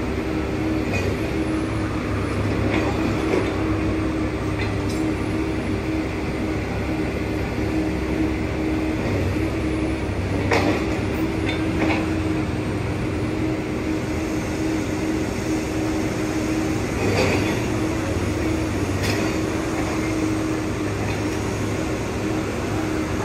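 A truck-mounted crane's engine running at a steady hum, with a few short knocks, the loudest about ten seconds in and again about seventeen seconds in.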